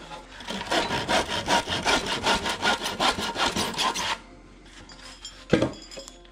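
Hand saw cutting into a wooden board with quick back-and-forth strokes, finishing the inside corner of a notch that a miter saw could not reach. The sawing stops about four seconds in, and a single sharp knock follows shortly before the end.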